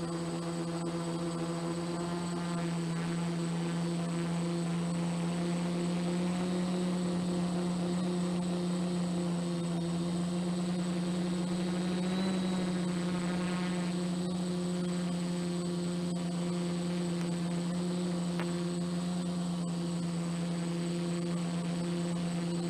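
F450 quadcopter's brushless motors and propellers humming steadily while it hovers in loiter mode. The pitch holds nearly constant, with a small wobble about halfway through as the flight controller corrects its position.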